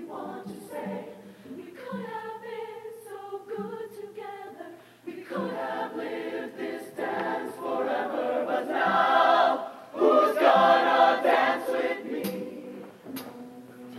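Mixed high-school show choir, male and female voices, singing in harmony: softer for the first few seconds, then coming in full about five seconds in and building to its loudest near the end.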